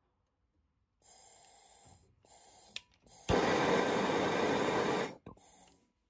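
Handheld gas soldering torch: a faint gas hiss, a click a little before three seconds in, then a sudden loud rush of flame heating a copper refrigerant line joint for soldering. The flame runs for about two seconds and cuts off, leaving a faint hiss.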